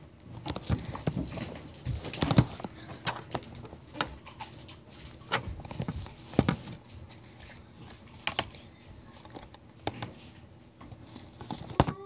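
Irregular knocks, taps and rustling from a person moving and handling things close to the microphone, with a few louder sharp knocks scattered through.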